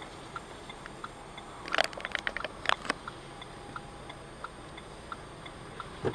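Steady ticking, about one and a half ticks a second, like a car's turn-signal indicator clicking in the cabin. About two seconds in comes a short cluster of louder clicks and knocks, and there is a single thump near the end.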